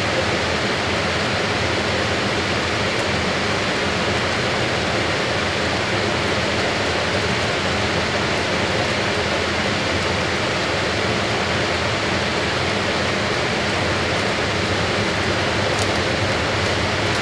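Fisher & Paykel AquaSmart top-loading washing machine running with its basket turning, giving a steady, even rushing noise without breaks.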